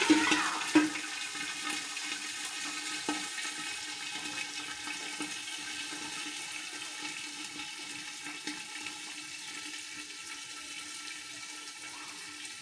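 Water poured into a pot of hot oil and browned onions, a loud rushing hiss at first with a sharp knock just under a second in, then settling into a steadily fading bubbling simmer.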